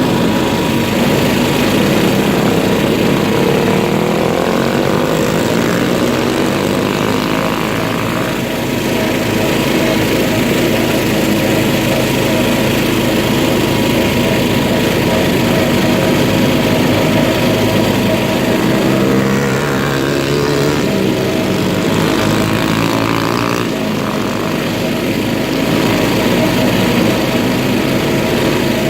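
An off-road vehicle's engine running loudly, its pitch rising and falling as it revs up and eases off several times.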